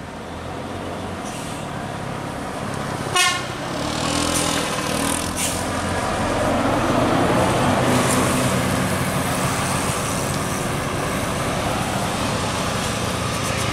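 A short horn toot about three seconds in, then a tour bus's engine and tyres growing louder as the bus comes round the bend and passes, loudest a little past the middle and staying steady after.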